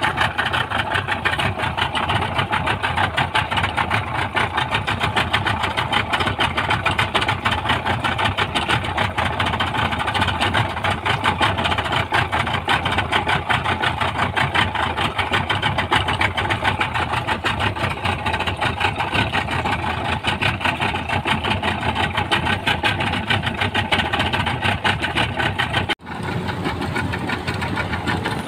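Speedboat engine running steadily with a fast, crackling beat, pushing a heavily loaded boat that does not get up to plane on its light propeller. The sound breaks off for an instant near the end, then carries on.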